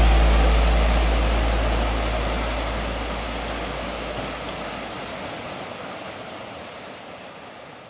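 Rushing whitewater, a steady hiss of churning water that fades out gradually. Under it, a low note left over from a rock soundtrack rings and dies away over the first few seconds.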